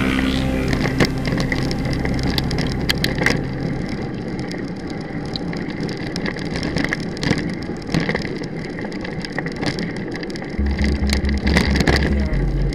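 Mountain bike riding over a dirt and gravel track, picked up by the bike camera: tyre crunch with irregular clicks, knocks and rattles. Music with a heavy bass beat comes in near the end.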